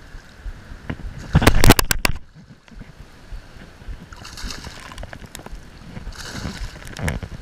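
A hooked summer flounder (fluke) splashing at the water's surface as it is played in on a fly line. The loudest run of sharp splashes comes about a second and a half in, with lighter sloshing later.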